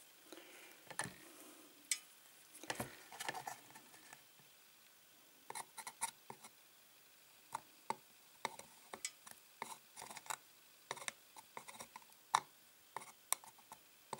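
Light, irregular clicks and taps of a soldering iron, dropper wire and N gauge track being handled while a dropper is soldered to the rail, a few at first and more frequent about halfway through.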